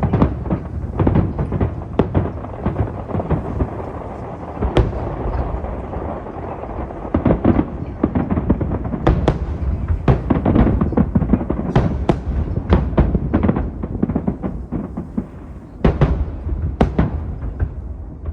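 Aerial fireworks display: shells bursting in a rapid, continuous barrage of bangs and crackles.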